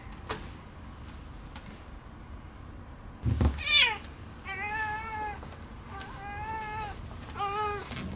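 A domestic cat meowing: one loud cry falling in pitch about three seconds in, with a low thump as it begins, then three drawn-out meows close together.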